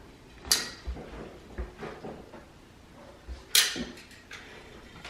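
Handling knocks and scrapes: a sharp knock about half a second in and another about three and a half seconds in, with lighter knocks and scrapes between them.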